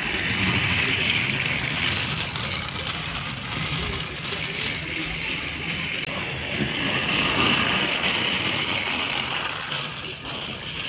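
Battery-powered TrackMaster toy train's small electric motor whirring as it runs along plastic track, swelling louder twice as it passes close.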